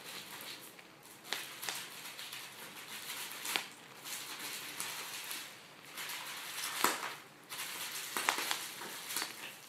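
Bubble wrap crinkling as a raccoon works it with its mouth and paws, with several sharp pops of the bubbles, the loudest about seven seconds in.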